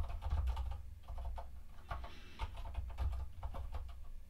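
Computer keyboard typing: quick, irregular key clicks as a terminal command is typed out, over a low steady hum.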